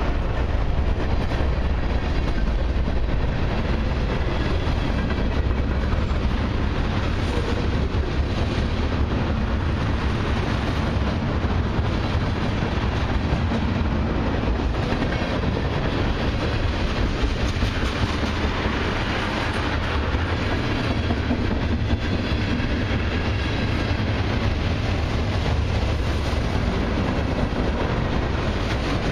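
Freight cars of a long mixed freight train rolling past close by: the loud, steady running noise of steel wheels on the rails, strongest in its low rumble.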